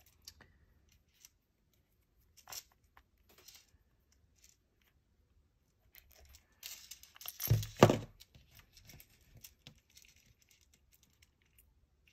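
Handling of a leather badge holder and a metal ball chain being threaded through its loops: faint scattered clicks and rustles. About seven seconds in comes a louder burst of rustling with a thump.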